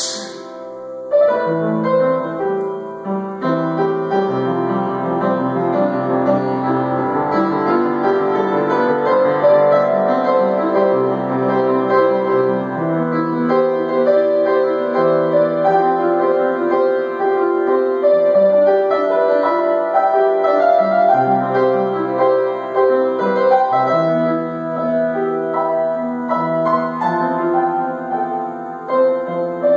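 Solo piano playing an improvised classical-style piece, with sustained chords under a moving melody. It opens with a short burst of hissy noise and about a second's pause before the playing resumes.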